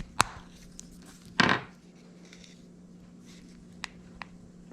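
Small screwdriver prying apart the plastic shell of a 2018 Jeep Wrangler proximity key fob: a sharp click, then a louder snap about a second and a half in as the casing pops, and a few faint ticks near the end.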